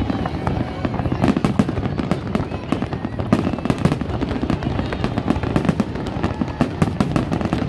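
Fireworks display at full barrage: shells bursting in a dense, unbroken string of bangs, several a second.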